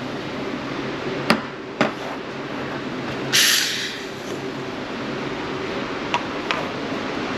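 Espresso machine's steam wand purged in a short hiss of steam, after two sharp metallic knocks, over the machine's steady hum. Near the end come two light taps as cups are set down on the steel counter.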